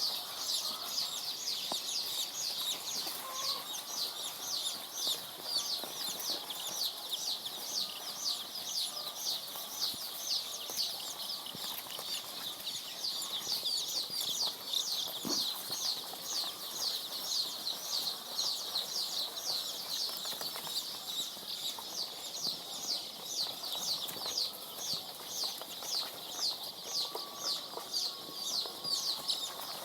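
A brood of three-day-old layer chicks peeping without pause: a dense run of short, high, falling peeps, several a second, from many birds at once.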